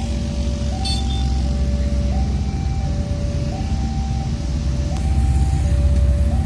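Level-crossing warning alarm sounding a two-tone signal, high and low notes alternating about every 0.7 s, over the low rumble of an approaching CC 202 diesel locomotive, which grows louder near the end.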